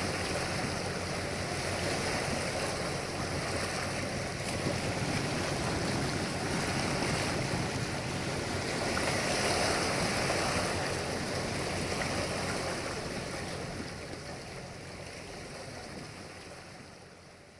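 Lake water washing and wind noise, with a faint low drone of the motor ship's two diesel engines underneath. The sound fades out over the last few seconds.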